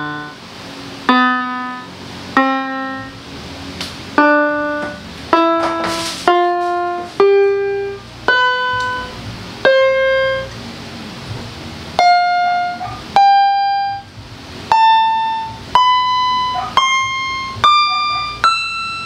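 GL-400 electronic keyboard in a piano voice, sounding single notes one at a time, about one a second, climbing upward in pitch step by step: the keys being tried one by one to check that each one works.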